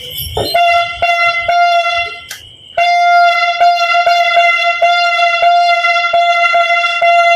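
A New Year's noisemaker horn blown in a long, steady, single-pitched blast that breaks off about two seconds in and starts again under a second later. Sharp firework pops go off throughout.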